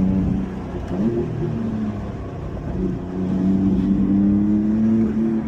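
Car engine pulling under acceleration. Its pitch dips and flicks back up about a second in, then climbs steadily through the rest.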